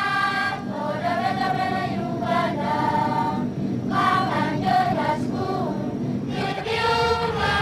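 Many voices singing together in chorus, holding long notes in phrases that break every second or two, with a steady low hum underneath.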